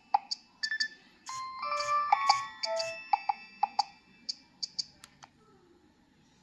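Nokia 3120b's speaker playing one of its preloaded polyphonic ringtones: a quick melody of short notes, several sounding at once, that fades away about five seconds in.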